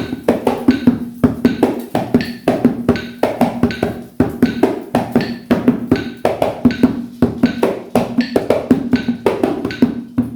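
Hands drumming an atabaque-style rhythm on a pot used as a hand drum: a fast, repeating pattern of sharp strikes over a low ringing body tone.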